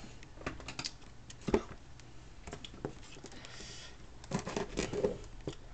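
A shipping package being handled and opened by hand: scattered clicks, taps and rustles, with a short tearing or scraping rasp about three and a half seconds in and a quick run of clicks near the end.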